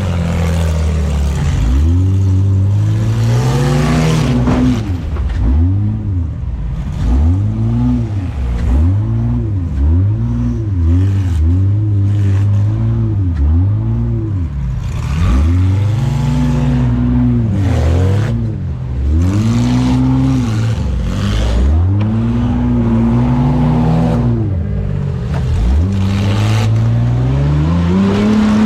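Demolition-derby van's engine, heard from inside the cab, revved hard again and again, its pitch climbing and falling about every second or two, with a few knocks and clatter; near the end it holds a steady high rev.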